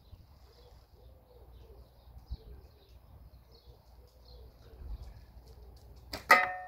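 Faint bird chirps and soft cooing calls in the background. About six seconds in, a catapult shot lands with one sharp crack and a brief metallic ring as the steel ball strikes metal.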